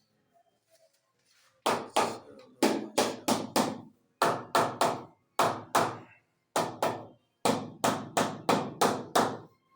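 Hammer striking repeatedly, sharp blows at about three a second in runs of several, starting about a second and a half in.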